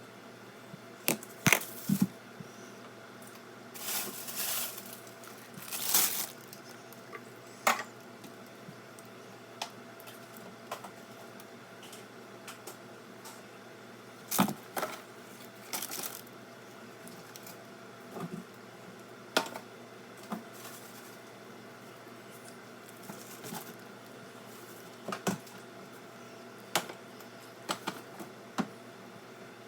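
Food containers, jars and bottles being taken out of a refrigerator and set down: scattered knocks and clinks at irregular intervals, with a few short rustles of plastic packaging.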